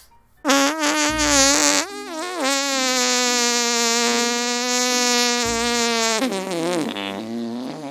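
A long, drawn-out mocking noise used as a put-down: one buzzy held tone that dips a little in pitch at first, holds steady for about four seconds, then wavers and trails off.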